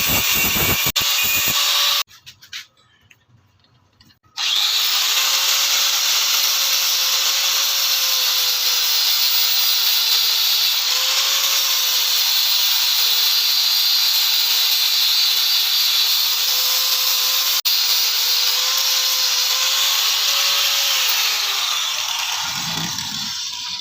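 An electric power tool running against a workpiece with a steady, abrasive hiss. It stops about two seconds in, starts again about two seconds later, and fades out near the end.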